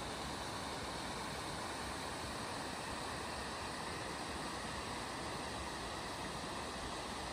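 Mountain stream running between snow-covered rocks: a steady, even rush of flowing water.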